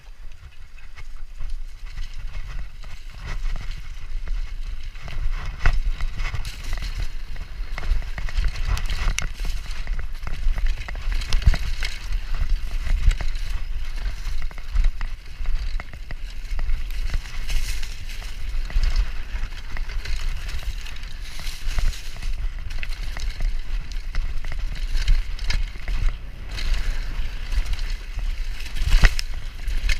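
Downhill mountain bike ridden fast down a dirt forest trail, heard from a camera on the rider: tyres rolling over dirt and leaves, the bike rattling and knocking over bumps, and wind rumbling on the microphone. It picks up from quieter rolling to full speed over the first couple of seconds.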